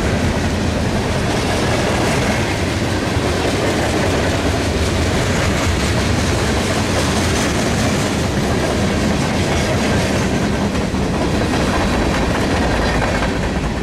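Long CSX mixed freight train rolling past, its freight car wheels clattering over the rail joints in a steady, loud rumble.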